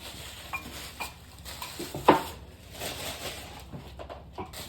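Light knocks and clicks of objects being handled and set down, with one sharper, louder knock about two seconds in.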